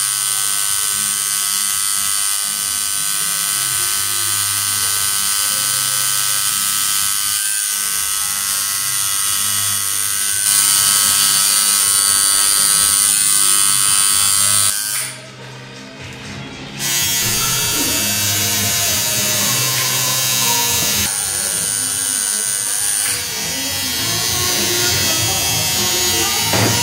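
Coil tattoo machine buzzing steadily as it needles ink into skin, breaking off for about two seconds midway, with music underneath.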